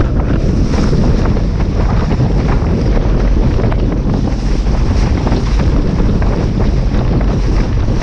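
Wind buffeting the microphone over the steady rush and hiss of water under a windsurf board planing at speed (Starboard Isonic 117), with quick irregular slaps of chop against the hull.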